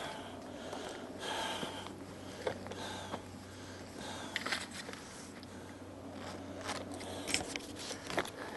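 Soft irregular rustles and clicks of someone walking while holding a camcorder, over a steady low hum.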